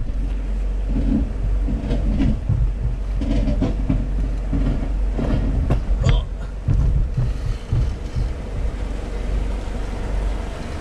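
Inside the cab of a Toyota Hilux Surf crawling over wet rock: a steady low engine rumble with irregular knocks, clunks and rattles as the tyres and suspension work over the rock, a few sharper knocks about two, five and six seconds in.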